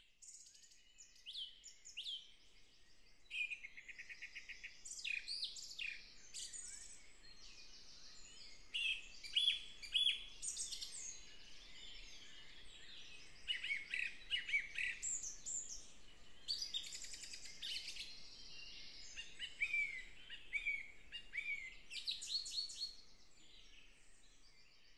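Several songbirds singing together, a steady overlapping stream of chirps, fast trills and rising and falling whistles.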